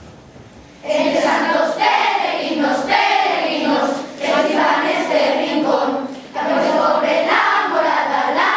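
Children's choir singing together, coming in about a second in, with short breaks between phrases.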